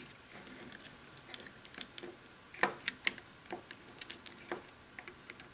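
Small plastic clicks and taps as hands fit the battery compartment cover back onto a wireless hitch camera's plastic housing. The clicks come irregularly, the two sharpest a little past halfway.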